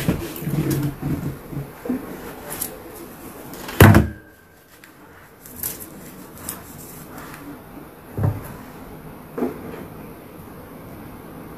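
Handling noise: a few sharp knocks and thumps, the loudest about four seconds in and two smaller ones later, between quieter stretches.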